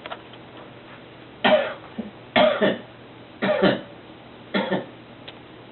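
A person coughing: four separate coughs about a second apart, each dropping in pitch.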